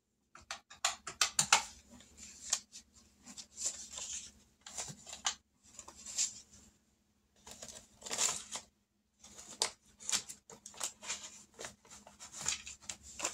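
Paper and banknotes being handled: rustling and crinkling in short, irregular bursts with brief pauses.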